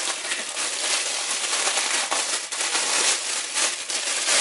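Clear plastic packaging wrap crinkling and crackling steadily as it is handled and pulled off a gloss white plastic Echo stand.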